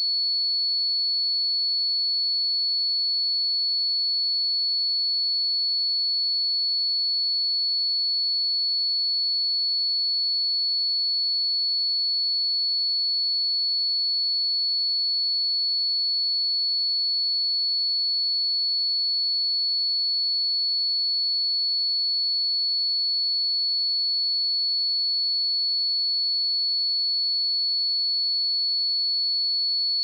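A steady, unbroken 4411 Hz sine-wave test tone: one pure, high-pitched tone held at constant pitch and level.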